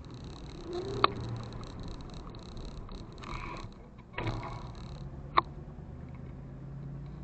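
Low, steady hum of a motorbike moving at walking pace, with two sharp clicks, one about a second in and another a little after five seconds.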